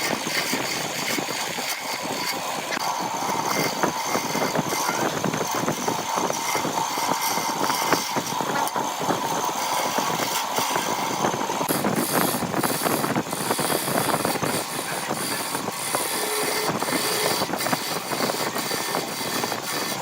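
Wood lathe running with a tool working the spinning wood: a steady motor tone under dense, continuous scraping and chatter.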